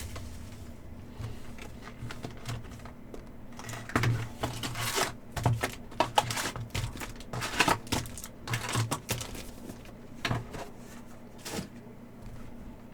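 Trading cards being handled and flipped through, giving an irregular scatter of light clicks and taps.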